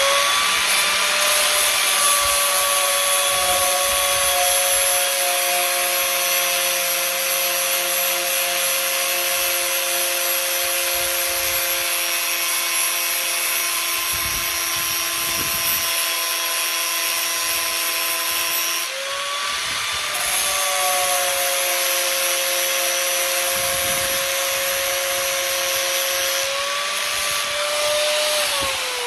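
Angle grinder with a flap disc running steadily under load, grinding the raised '12 valve' lettering off a painted valve cover: a steady motor whine over a harsh grinding hiss. A short break comes about two-thirds through, and the motor starts to wind down at the very end.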